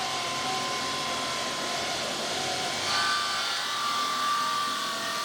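Stone-cutting saw cutting through stone: a steady grinding hiss with a thin whine that steps up slightly in pitch about three seconds in.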